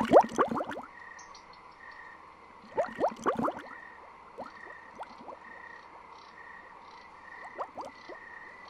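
Steady frog chorus pulsing about twice a second, broken by three clusters of quick watery bubbling plops at the start, about three seconds in and near the end.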